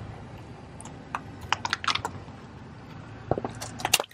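A run of sharp clicks and crackles, in two clusters, as a car tyre rolls over and crushes squishy stress balls filled with water beads. The loudest clicks come near the end, as the green ball bursts.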